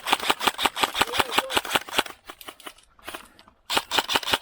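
Airsoft electric guns firing on full auto: rapid clicking shots, about ten a second, in two long bursts with a short pause between them, the second starting near the end.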